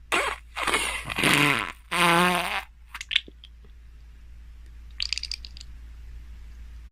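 Fart sound effect: a run of loud, pitched farts in the first three seconds, the longest and loudest about two seconds in, then a couple of short sputters and a brief crackling splutter about five seconds in, over a steady low hum.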